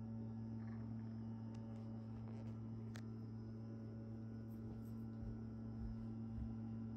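Steady low electrical hum, with a couple of faint light clicks.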